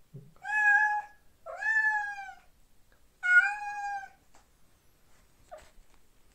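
Domestic cat meowing: three long, loud calls in a row, each about a second long, then a short faint one near the end. The cat is calling for another cat it is trying to get to.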